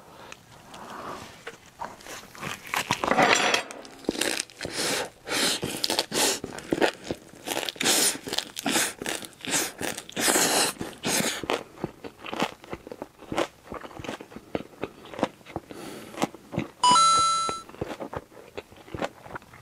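Close-miked eating of a perilla-leaf wrap of grilled pork neck steak and buldak carbonara noodles: wet biting, crunching and rapid chewing. Near the end a short pitched sound effect sounds once, the loudest thing heard.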